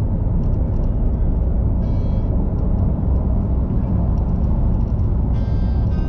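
Steady low rumble of a car's tyre, road and engine noise heard from inside the cabin, cruising at expressway speed. Faint short tones come in briefly about two seconds in and again near the end.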